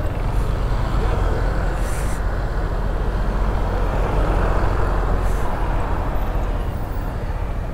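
Motorcycle on the move: steady wind rush on the rider's microphone over the low hum of the engine and road noise.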